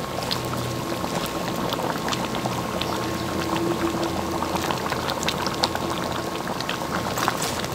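Pork puchero in tomato sauce simmering in a pan, bubbling steadily with many small pops.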